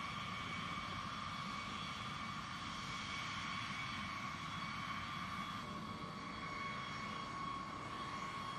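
Jet engines of a taxiing B-52H bomber, its TF33 turbofans: a steady high whine over a low rumble.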